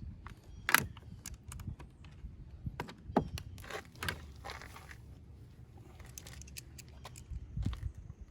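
Scattered clicks, taps and scrapes of a nut driver and plastic door-panel parts being handled while screws are taken out, the sharpest click about a second in and another about three seconds in.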